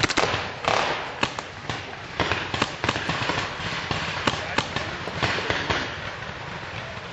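Paintball markers firing in an irregular run of sharp pops, several a second at times, some loud and close, others fainter.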